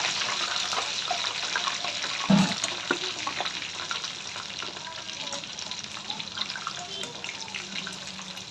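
Chicken momos deep-frying in hot oil in a kadhai: a steady hiss with scattered crackling pops, easing off slightly toward the end. A dull knock sounds about two seconds in.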